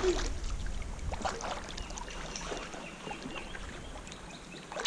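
Water sloshing and lightly splashing around a kayak, with small scattered knocks, while a hooked bass is fought. A low rumble fades out about three and a half seconds in.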